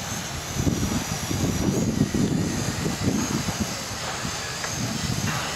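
WL Toys Q212 quadcopter in flight, a faint high wavering whine of its propellers heard under a louder, uneven low outdoor rumble.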